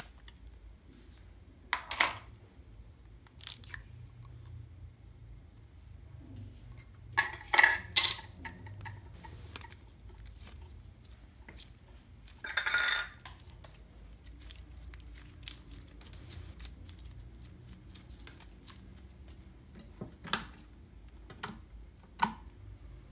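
Hands working a plastic slime tub and squeezing pink slime. A handful of short, sharp clicking and crackling sounds with quiet stretches between them: the loudest is a quick cluster of snaps about seven to eight seconds in, followed by a crackle lasting under a second about halfway through.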